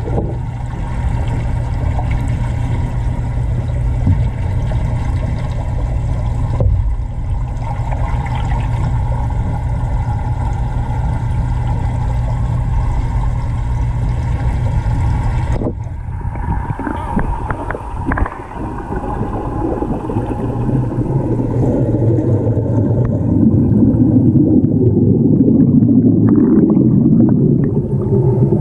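Underwater sound in a large fish tank: a steady low hum with water rushing and bubbling. A few knocks come just past the middle, and the rushing grows louder near the end.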